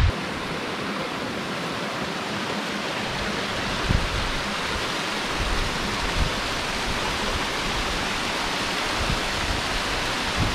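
Waterfall rushing over rocks close by, a steady, even hiss of falling water, with a few soft low bumps.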